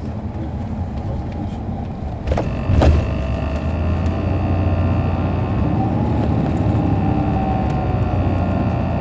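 Caterpillar C13 ACERT diesel engine of a 2007 MCI D4500CL coach, heard from on board, running under way with a steady low hum. A couple of knocks come about two and a half seconds in, after which the engine gets louder and a whine joins, wavering and rising a little in pitch near the middle.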